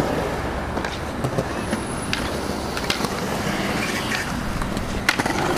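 Skateboard wheels rolling steadily over concrete, with a few sharp knocks near the end.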